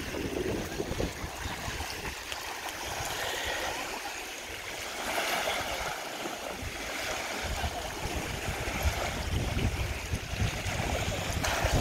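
Water washing and lapping at a shoreline, with gusts of wind rumbling on the microphone, stronger in the second half.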